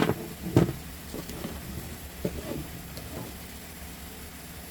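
Light plastic knocks and taps as the pieces of a Q-snap cross-stitch frame are handled and fitted together: two sharper knocks in the first second, then a few softer taps.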